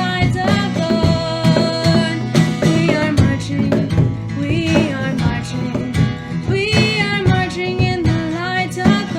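A song sung with acoustic guitar accompaniment: a voice carrying a melody over steadily strummed and plucked guitar.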